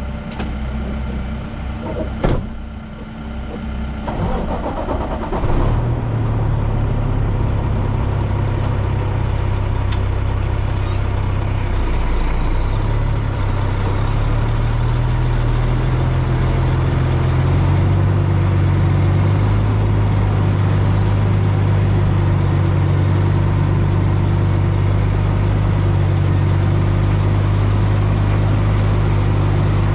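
A sharp knock about two seconds in. Then a heavy-equipment diesel engine comes up to speed and runs loud and steady, its pitch stepping up a couple of times before holding.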